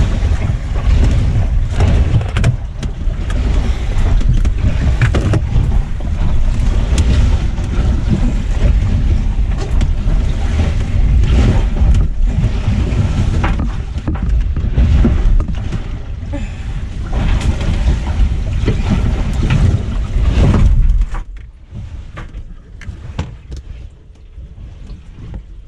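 Rustling, knocking and a heavy low rumble as towels are stuffed by hand into a leaking crack in a sailboat's fibreglass hull. The noise drops off suddenly about 21 seconds in.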